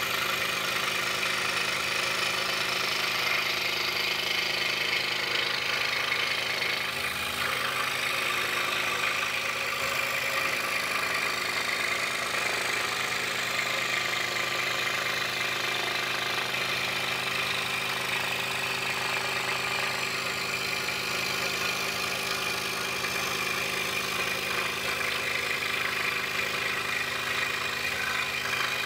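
DeWalt scroll saw running steadily, its reciprocating blade cutting through a wooden puzzle blank as it is fed by hand.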